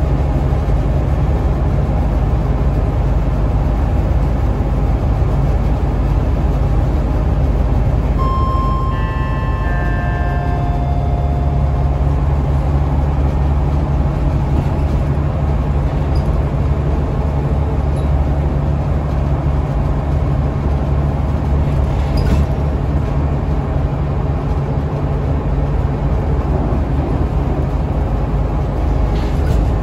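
Scania L94UA articulated bus's 9-litre five-cylinder engine running under way, a steady low rumble with road noise heard from inside the passenger cabin. About eight seconds in, a few brief high tones at different pitches sound over it for a few seconds.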